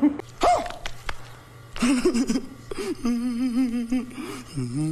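A woman's wordless vocal sounds: a short high squeak under a second in, then, from about three seconds, a long trembling, wavering voice that dips and picks up again near the end.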